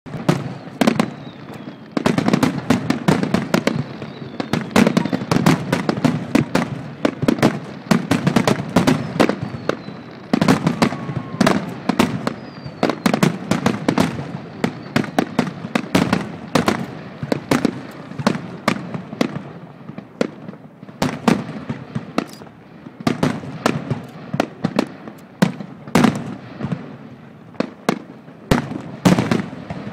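Aerial fireworks display: a dense, continuous barrage of sharp bangs and booms from bursting shells, several a second, over a low rolling rumble, with a few faint whistles.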